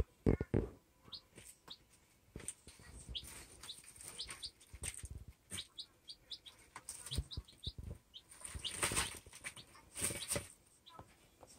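Baby chicks peeping: many short, high cheeps scattered throughout. Between them come sharp taps and rustles of the chicks pecking and scratching in loose pine wood shavings, with a longer rustling stretch about eight to ten seconds in.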